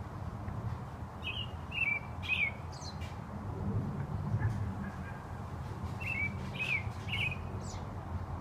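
American robin singing: two short caroling phrases of three or four whistled, downslurred notes, each ending with a thin, high squeaky note. The phrases come about a second in and again about six seconds in, with a pause between them.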